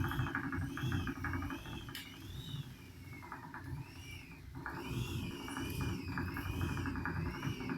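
Fast, even knocking from an Arion Digital unit, with a high warbling tone that rises and falls about once a second. The knocking thins and drops out for a second or so near the middle, then returns.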